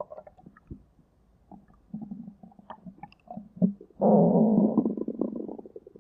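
Stomach rumbling: scattered small gurgles and squelches, then a loud, sustained low rumble about two-thirds of the way in.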